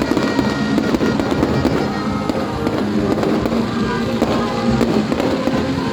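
Aerial fireworks display: a dense, continuous run of overlapping bangs, with music playing along.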